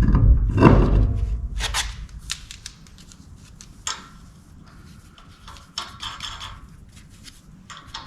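A tire and wheel being handled and refitted: heavy thuds in the first second and a half, then scattered light clicks and knocks.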